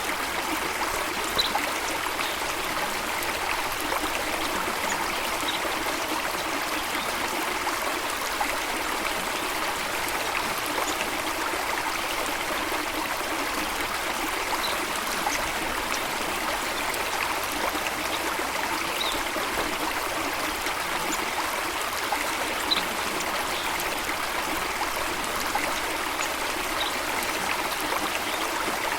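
Running water rushing steadily, with a few brief, faint high sounds scattered every few seconds.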